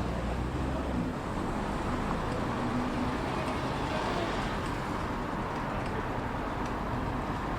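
Steady vehicle noise: a low rumble under an even hiss, heaviest in the first second.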